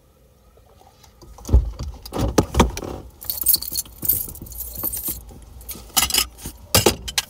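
Car keys on a keychain jangling and clicking as they are handled and taken from the ignition, with a few knocks about a second and a half in and sharp clicks near the end.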